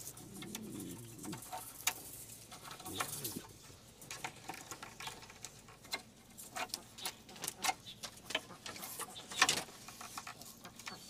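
Scattered light clicks and knocks from hands working wire and poles on a shed frame, with one sharper knock near the end. A pigeon coos faintly near the start.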